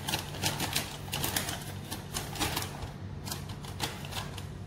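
An irregular run of small clicks and clinks from a spoon and kitchen containers being handled while custard powder is scooped out, over a low steady hum.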